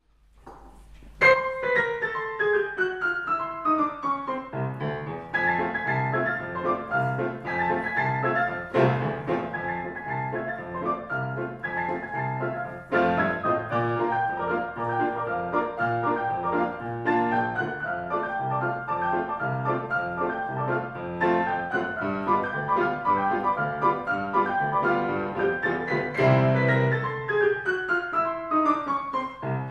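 Grand piano played four hands in a ragtime piece. A loud first chord about a second in opens a falling run of notes, then a steady bass beat runs under a busy upper line, and another falling run comes near the end.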